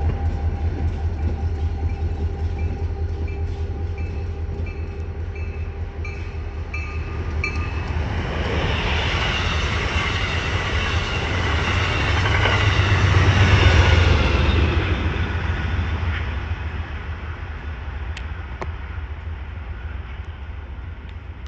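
Guilford Rail System EMD Geep diesel locomotive's engine running with a steady deep hum, while a warning bell dings at a steady pace for the first seven seconds or so. An Amtrak passenger train then rushes past on the next track, its wheels and cars swelling to the loudest point a little past the middle and fading away toward the end.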